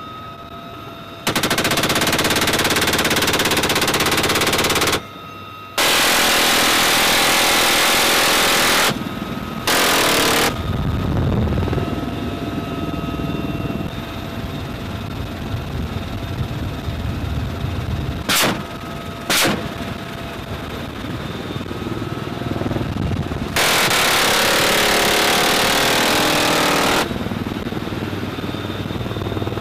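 Helicopter door-mounted machine gun firing: several long, continuous bursts of a few seconds each and a couple of very short ones. The UH-1Y Venom helicopter runs steadily between bursts.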